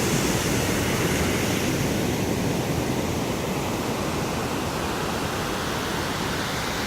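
Ocean surf washing on the beach, a steady rushing noise.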